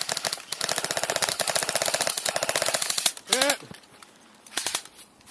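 Airsoft gun firing on full auto: a long burst of rapid, even clicking shots lasting about three seconds, then a second short burst near the end. A brief shout comes between the two bursts.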